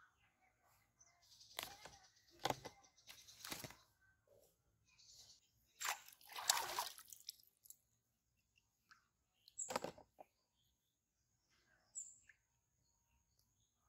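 A series of short water splashes at the surface of a pond where a bamboo fishing rod's hook line lies, the loudest a little past the middle. A thin high steady tone runs faintly through the second half.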